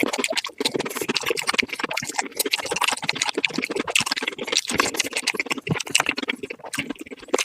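Close-miked eating sounds sped up: a person chewing crispy fried chicken, with dense rapid crunches and wet mouth clicks.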